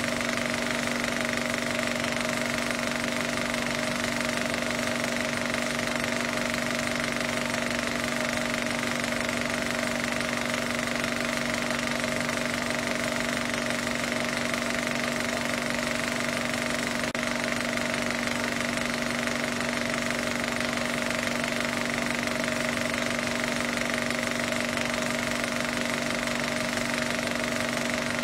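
A steady, unchanging drone made of a few held tones over a hiss, with no breaks or events.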